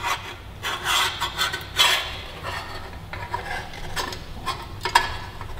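Metal exhaust parts scraping and clicking as a header flange and nut are handled and worked up onto the cylinder-head studs: a few short scrapes in the first two seconds, then light sharp clicks.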